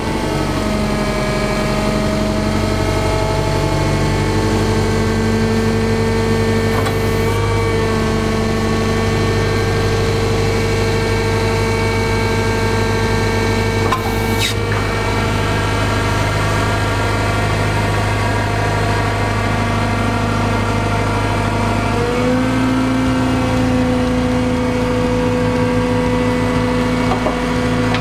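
Forklift running with a steady engine and hydraulic hum while its Cascade split-arm paper-roll clamp is worked. The pitch steps up about three-quarters of the way through, and there is a faint click around the middle.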